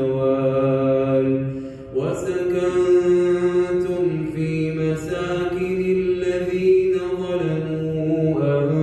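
A male voice reciting the Quran aloud in a melodic chanting style (tajwid), drawing out long held notes that glide between pitches, with a short breath pause about two seconds in.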